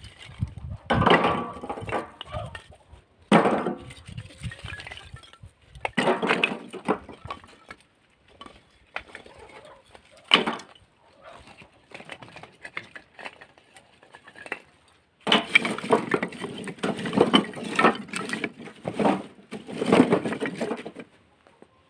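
Pieces of split firewood knocking and clattering. There are several separate sharp knocks, then a dense run of clatter in the last several seconds.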